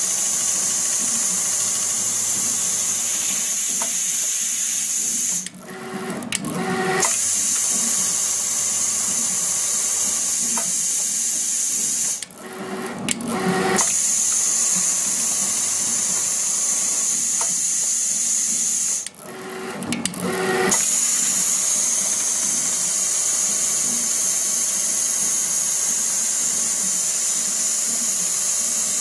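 Automatic pattern sewing machine stitching a shoe upper: a steady, high-pitched machine hiss and whir. Three times it briefly drops out, a hum shows through, and the level builds back up.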